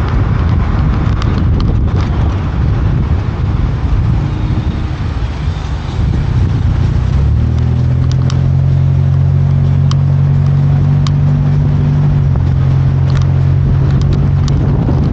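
Toyota Tacoma pickup driving, heard from a camera mounted outside the truck: road and wind rumble, joined about halfway through by a steady low engine drone that holds one pitch.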